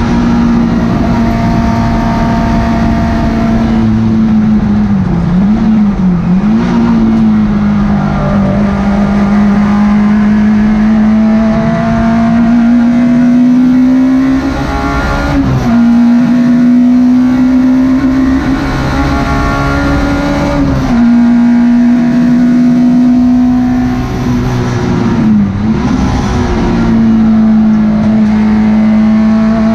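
Citroen Saxo race car's 1.4-litre four-cylinder engine heard from inside the stripped cabin, running hard at high revs, its pitch dipping and jumping again at gear changes several times.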